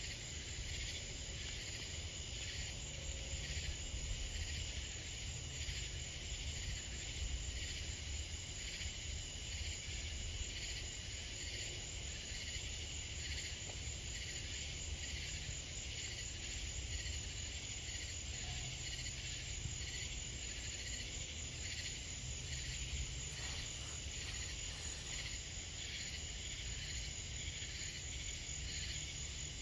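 Steady chorus of night insects, a continuous pulsing trill, over a low steady rumble.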